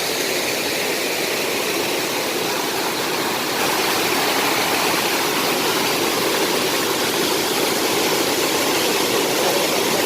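Steady rush of falling water from a waterfall, a loud even roar with a slight rise in level a few seconds in.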